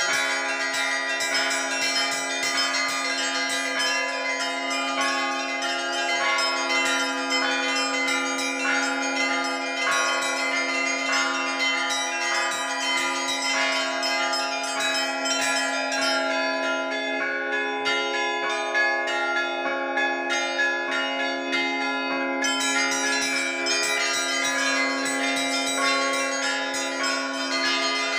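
Russian Orthodox festive Easter bell ringing (zvon): several church bells of different pitches struck by their rope-pulled clappers in a rapid, continuous peal, heard close up from inside the belfry. The small high bells thin out for a few seconds past the middle, while the deep bell keeps sounding.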